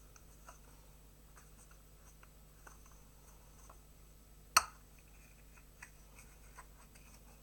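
Faint scratching and light ticking of small objects being handled, with one sharp click about four and a half seconds in.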